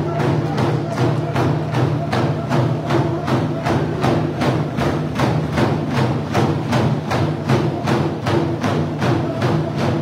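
Dene hand-game drummers beating large hide frame drums with sticks in a fast, steady beat, about three strikes a second, with a group of men singing a hand-game song over the drumming.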